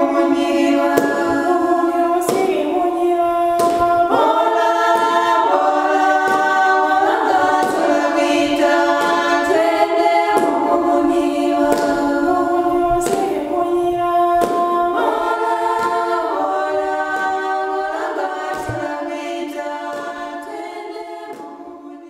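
Small group of women singing unaccompanied in harmony, holding notes that change every second or two; the song fades out near the end.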